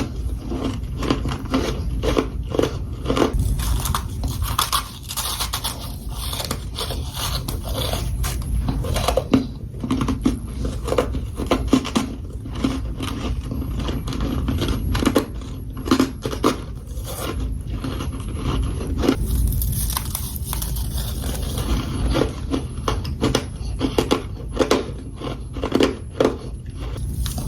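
Close-up crunching of humidifier frost being bitten and chewed, with many irregular sharp crunches.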